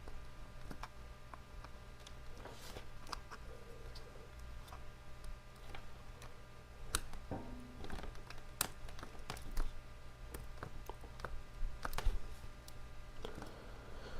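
Scattered small clicks and taps of hands working inside an opened tablet, plastic and metal parts being handled and pressed into place, over a steady low hum.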